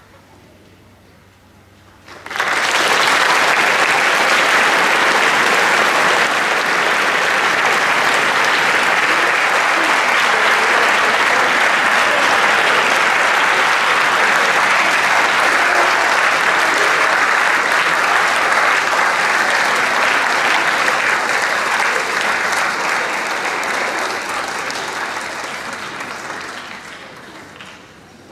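Audience applauding, breaking out suddenly about two seconds in, holding steady and loud for some twenty seconds, then fading away near the end.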